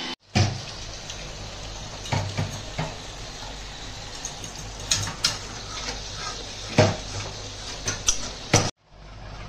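A steel ladle clinking and knocking against a steel wok as gravy is stirred, with sharp clinks every second or so at uneven intervals.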